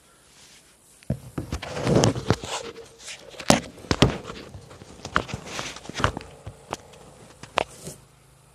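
Handling noise of a phone camera being moved about and set down on a diamond-plate metal surface: a series of knocks, taps and scrapes, with a rustle about two seconds in, stopping near the end.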